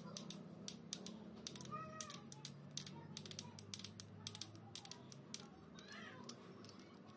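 Irregular small metal clicks and ticks from a two-jaw bearing puller being fitted behind the bearing on an angle grinder's armature shaft and worked, with a couple of faint squeaks.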